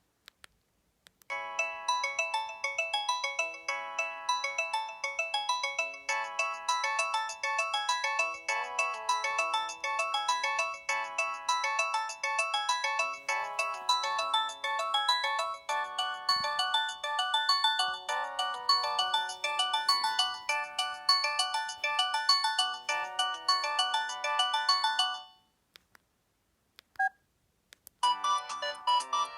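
Preloaded ringtone on an LG GM205 mobile phone: a synthesized melody of quick notes over a bass line, playing for about 24 seconds and stopping abruptly. After a short pause and a brief blip, the next ringtone starts near the end.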